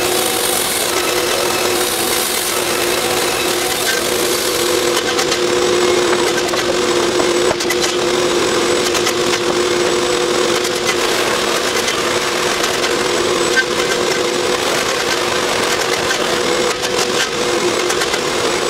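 Wood-Mizer LT50 band sawmill running with a steady engine hum. A higher hiss over it stops about five seconds in.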